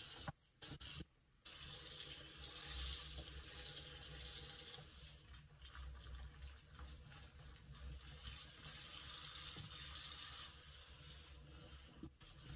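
Tap water running steadily into a bathroom sink while a soapy sponge is scrubbed and rinsed under the stream. The sound is broken by brief silences in the first second and a half, and grows quieter about two seconds before the end.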